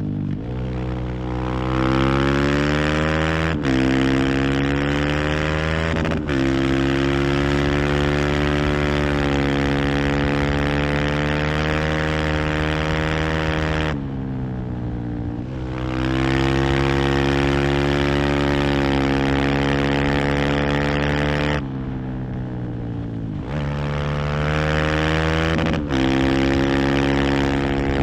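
Husqvarna FE 501's single-cylinder four-stroke engine accelerating hard, with two quick upshifts a few seconds in, then held at steady high revs. Twice the throttle is closed and the revs fall away, around the middle and again near the end, before it opens up and pulls again with another shift.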